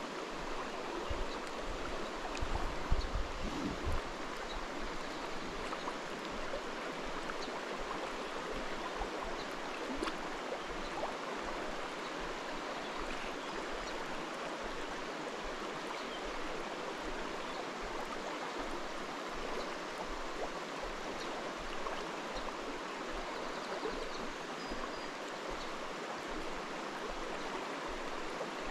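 Steady rush of a river's current running over a shallow, rocky riffle, with a few low bumps about two to four seconds in.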